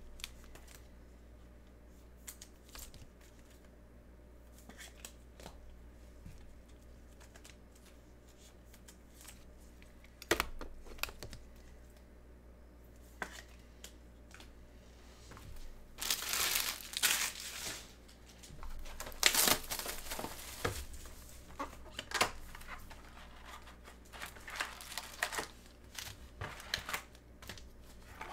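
Trading card pack wrappers being torn open and crinkled by hand. The first ten seconds hold only a few faint clicks; scattered bursts of crinkling follow, the loudest a little past halfway.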